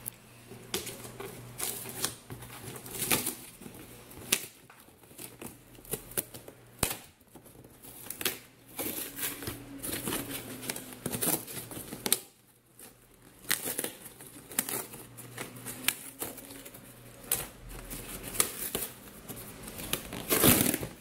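Corrugated cardboard shipping box being opened by hand: irregular ripping, crinkling and scraping of its flaps, with a louder rip near the end.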